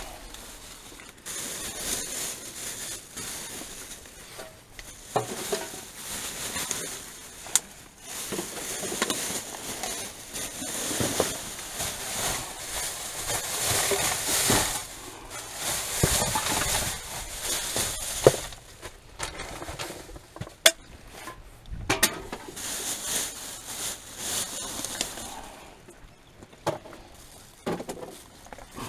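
Rubbish being rummaged through by hand: plastic bags and paper rustling and crinkling, with scattered sharp clicks and knocks of items being handled.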